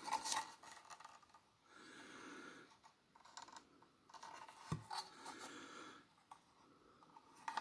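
Faint handling noise of a plastic toy mecha cockpit piece being turned over in the hands: a few light plastic clicks and taps, the sharpest about two-thirds of the way through, with soft breathing between them.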